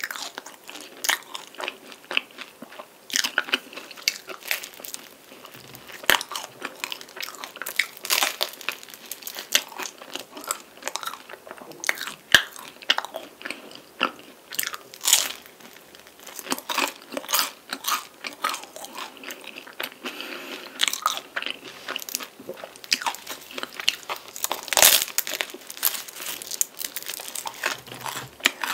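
Biting and chewing a chocolate-glazed, cream-filled flaky pastry: irregular crisp crunches of the layers with chewing between, the loudest bite about 25 seconds in.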